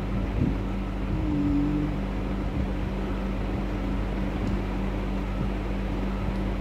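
Steady low machine hum over a constant hiss, with a brief faint tone about a second and a half in.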